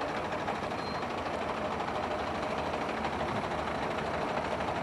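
Steady background rumble of idling vehicles, with no distinct events.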